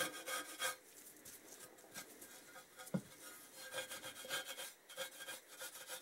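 Red Scotch-Brite abrasive pad scrubbed in quick back-and-forth strokes over the finned sump of a 1982 Kawasaki Z1000J engine, keying the surface for paint. The scrubbing stops for a couple of seconds after about a second, with a single knock in the gap, then picks up again.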